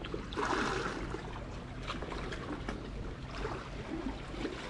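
Sea water lapping and gurgling among concrete tetrapod blocks, with a louder slosh about half a second in.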